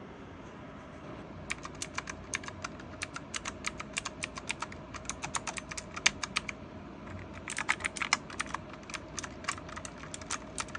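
Typing on an AULA F2088 mechanical keyboard with clicky blue switches: sharp, irregular keystroke clicks. They start about a second and a half in, with a quick flurry of keystrokes about three-quarters of the way through.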